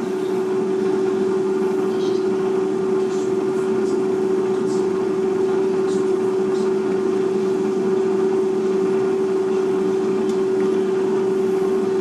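Cosori smart air fryer preheating: its fan runs with a steady hum and a constant whine, with a few faint ticks over it.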